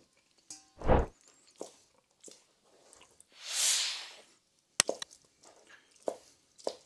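Knife cutting cooked pork knuckle on a plastic cutting board: scattered knocks and clicks of the blade and meat on the board, the loudest a dull thump about a second in, with a short soft hiss about halfway.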